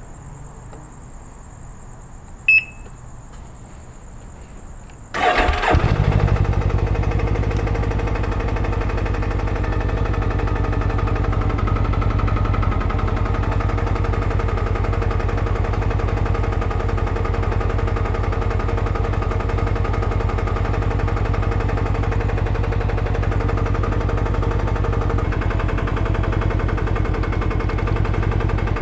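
A faint high whine and a short beep, then about five seconds in the 2021 Can-Am Ryker 600's Rotax two-cylinder engine starts and settles into a steady idle. It carries the knocking that the owner reports as engine knock.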